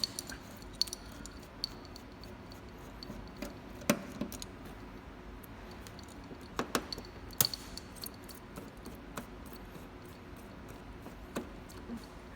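Scattered small clicks and metallic clinks, about half a dozen louder ones spaced irregularly, as a screwdriver takes out the screws holding a machine's connector, over a faint steady hum.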